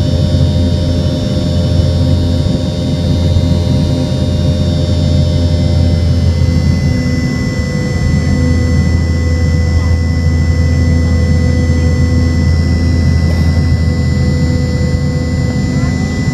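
Boeing 717-200's rear-mounted Rolls-Royce BR715 turbofan running loud and steady, heard from inside the cabin right beside it: a deep rumble under several steady whine tones, with a higher whine joining about six seconds in.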